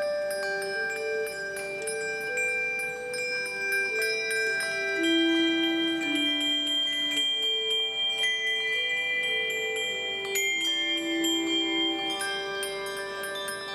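Handbell choir playing a slow melody on handbells and handchimes, each note ringing on and overlapping the next.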